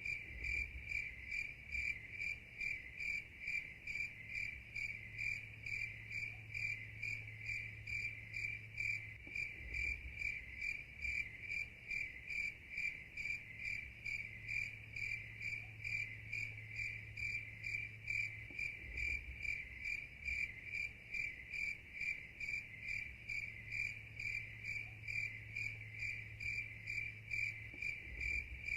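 Insect chirping in an even rhythm, about two to three high chirps a second, over a low hum that comes and goes.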